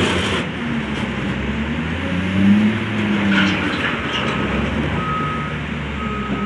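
Wheel loader's diesel engine running under load as it pushes broken paving debris, revving up briefly about two and a half seconds in, with a few knocks of debris. From about five seconds in, a reversing alarm beeps steadily about once a second.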